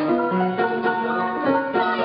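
Upright piano played four hands, a quick run of many notes in a lively tune with a bright, twangy tone.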